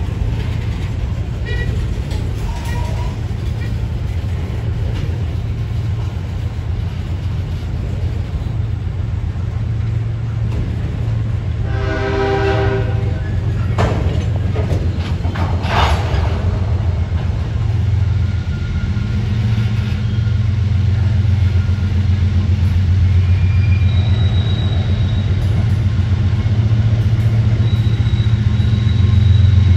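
Diesel locomotive engine drone growing louder as the train draws near, with a short horn blast about twelve seconds in and two sharp knocks a couple of seconds after it.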